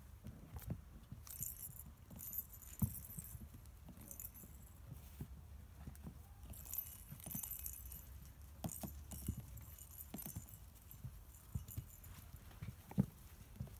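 Welsh Springer Spaniel puppies scrambling over and around a parasol base, making irregular light knocks and thumps, with bursts of high rustling. The loudest knocks come about three seconds in and near the end.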